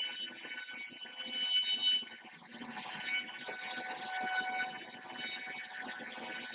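CNC router spindle whining at a high, steady pitch over the rasp of the bit cutting into wood.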